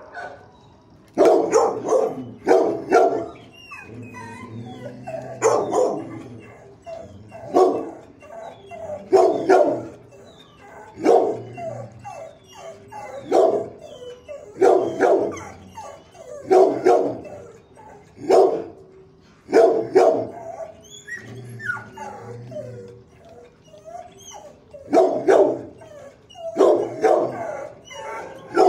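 Pit bull-type dog barking repeatedly, in clusters of one to three barks that come every second or two.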